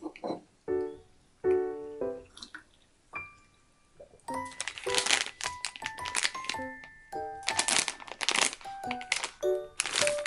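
Light background music with short piano-like notes, joined about four seconds in by dense crinkling and crackling noises.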